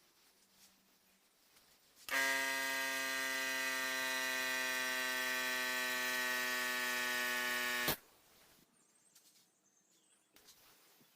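Steady electric buzz of a small motor, running at a constant pitch for about six seconds, switched on and cut off abruptly.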